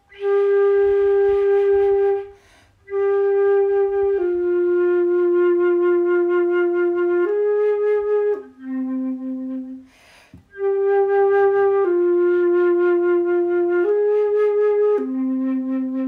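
Silver concert flute played softly in long held notes. A short slow phrase that steps down to a low note is played twice, with a pause between. Only the lips change the tone colour between a breathier, unfocused sound and a focused one.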